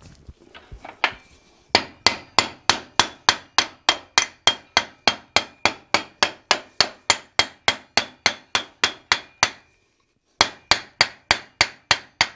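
Hand hammer striking the glowing end of a steel bar clamped upright in a vise, upsetting it into a knob: a few light taps, then rapid, evenly spaced blows, about four a second, each with a short metallic ring. The hammering stops for under a second near the end, then resumes.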